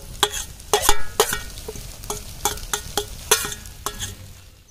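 A metal spoon clinking and scraping against a kadhai and a steel plate as vegetables are scraped into the pan and stirred through frying noodles, with a faint sizzle underneath. The clinks come irregularly, about a dozen, each ringing briefly.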